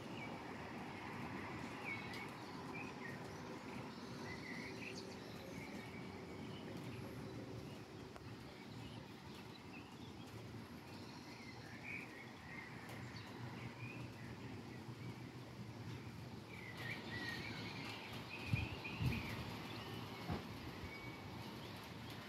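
Birds chirping in short scattered calls over a steady low hum of distant outdoor background noise, with a few low thumps near the end.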